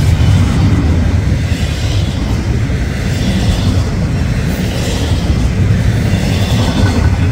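Double-stack intermodal freight train's container well cars rolling past at close range: a loud, steady low rumble of steel wheels on rail.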